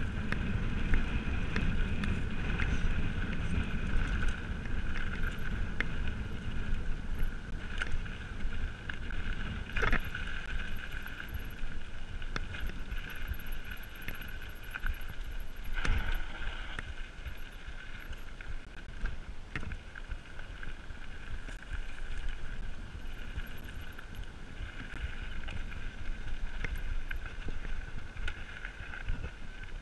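Mountain bike riding on a dirt singletrack, heard from a camera on the bike or rider: wind buffeting the microphone and tyre rumble, with a steady high-pitched buzz throughout. Two sharp jolts from bumps come about ten and sixteen seconds in.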